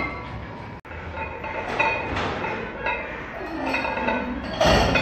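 Metal clinking and clanking of barbell weight plates in a gym, repeated short ringing strikes, with a louder clatter near the end.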